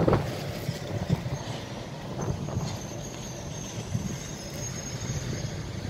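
Passenger train coaches rolling slowly over the station tracks: a low rumble with a thin, high wheel squeal that sets in about a second and a half in and holds steady.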